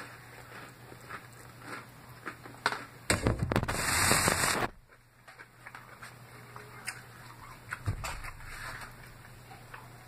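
Close-up chewing of salad: small crunches and mouth clicks, with a loud crackling rustle about three seconds in that lasts about a second and a half.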